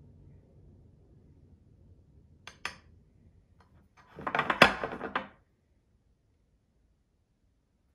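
Metal kitchen tongs clicking and clattering against a glass baking dish of flour: two sharp clicks about two and a half seconds in, then a second of rapid rattling as a floured piece of chicken is lifted and shaken off over the dish.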